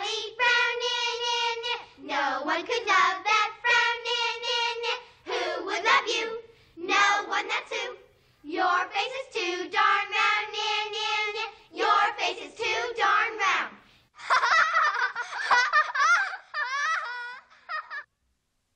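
Two young girls' voices chanting a sing-song taunt over and over in held, repeated notes, breaking into laughter near the end. The sound cuts off suddenly.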